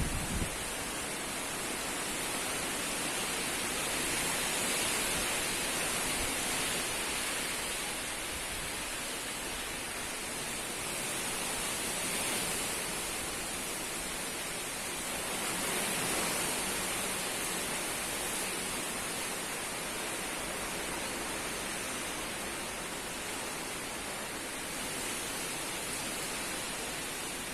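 Strong gusty wind blowing steadily with a constant hiss, swelling with gusts a few times. A brief low thump right at the start.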